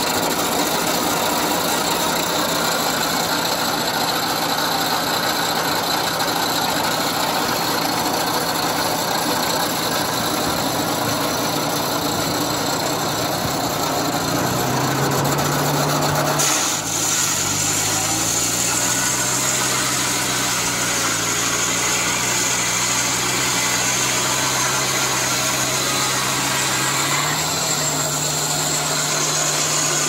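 Old belt-driven circular sawmill running, its large saw blade cutting a log into boards while an old combine engine drives it. The pitch of the drive shifts about halfway through and again near the end.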